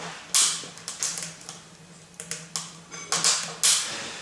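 Kindling sticks crackling and popping as they catch in the feed box of a Maya rocket stove: irregular sharp snaps, several a second, the loudest just after the start and again about three seconds in, over a faint low steady hum.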